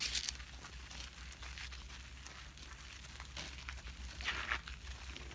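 Footsteps and rustling as people walk, with a louder scuff right at the start and another about four seconds in, over a steady low rumble.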